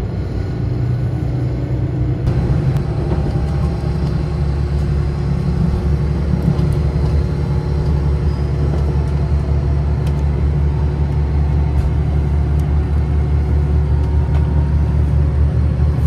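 Cabin noise inside a Super Hakuto limited express, a HOT7000-series diesel railcar: a steady low engine and running rumble that grows gradually louder.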